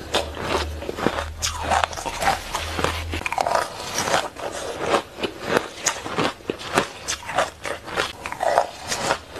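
Close-miked crunching of coloured shaved ice being bitten and chewed: a dense, irregular run of sharp, crackly crunches.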